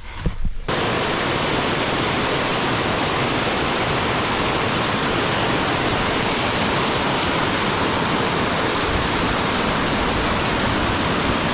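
A waterfall rushing close by: a loud, steady wash of falling water that starts abruptly about half a second in. There are a couple of short knocks just before it.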